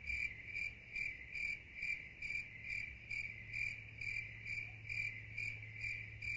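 Cricket-like insect chirping in an even, steady rhythm, about two high-pitched chirps a second.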